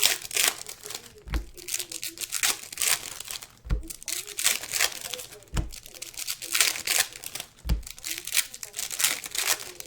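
Crinkling and rustling of plastic wrapping being handled, irregular and crackly, with soft low thumps about every two seconds.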